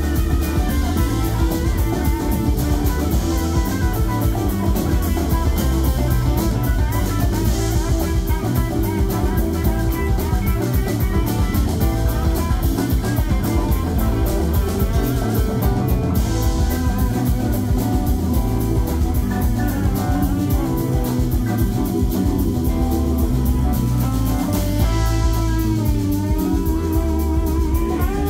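Live rock band: an electric guitar plays a lead line over a drum kit, with pitch bends and vibrato near the end.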